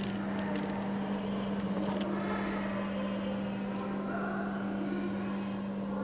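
Steady low electrical hum, with a few faint scratches of a pen drawing lines on paper.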